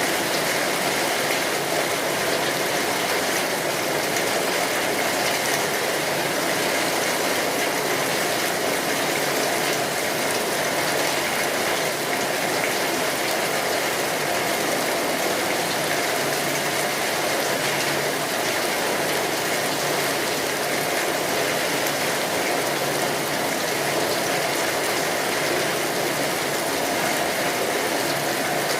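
Steady rain on a tin roof: a dense, even patter of drops on the metal with no let-up.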